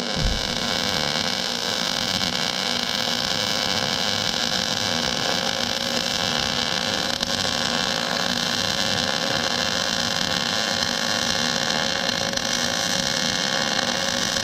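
Electric welding arc running in one long continuous bead on a steel dump-truck bed: a steady hiss with a faint buzz, unbroken throughout.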